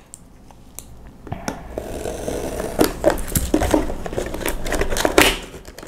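Small paperboard retail box being opened by hand: rustling and scraping of the cardboard with a run of sharp clicks and taps, starting after a quieter first second.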